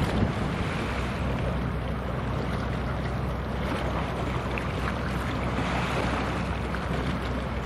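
Low, steady drone of a passing cargo ship's engine, mixed with wind and water noise.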